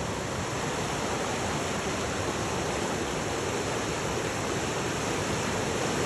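Fast-flowing forest river rushing over rocks and rapids: a steady, even rush of white water, growing a little louder near the end.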